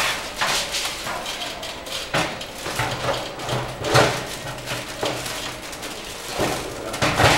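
Stainless steel grill box of an electric countertop cooking appliance being turned upside down and set in place by hand: a series of irregular metal knocks, clunks and scrapes, the loudest about four seconds in and another just before the end.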